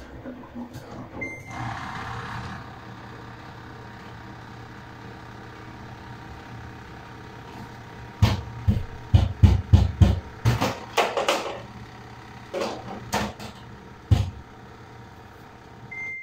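Samsung front-loading washing machine: a short control-panel beep as a button is pressed, then the drum motor starts with a brief whine and settles into a steady hum. From about eight seconds in comes a series of loud, irregular thuds, and a second beep sounds at the end as a button is pressed again.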